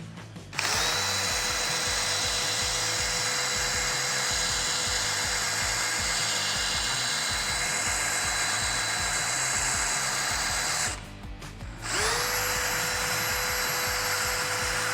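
DeWalt DCD1007 18V brushless hammer drill in first gear, boring into wood with a 12 mm auger bit. The steady motor whine stops about 11 seconds in, then spins up again a second later.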